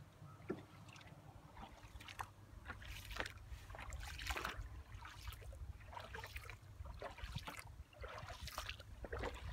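Water splashing and lapping around a moving coracle, in irregular splashes a few times a second, over a steady low rumble.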